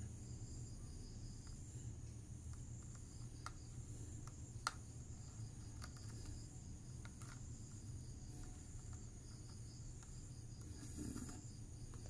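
Insects trilling steadily at a high pitch over a low background rumble, with one sharp click a little before the middle.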